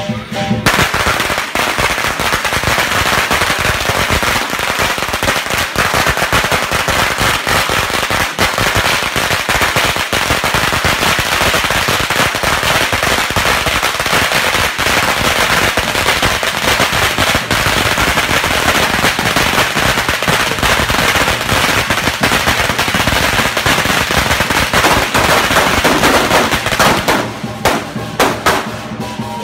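A long string of firecrackers hung from a pole going off in a dense, unbroken crackle of rapid bangs that stops near the end.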